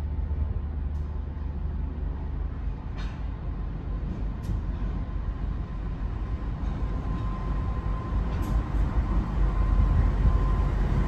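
Qube diesel-electric freight locomotive approaching, its low engine rumble growing steadily louder as it nears, with a thin steady whine coming up in the second half.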